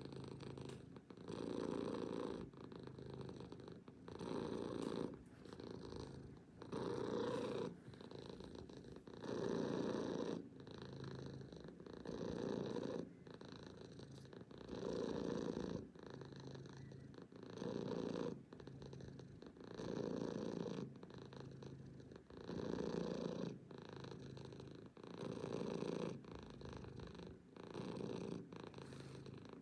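Domestic cat purring steadily while being stroked, the purr swelling louder and softer in a regular cycle about every two and a half seconds.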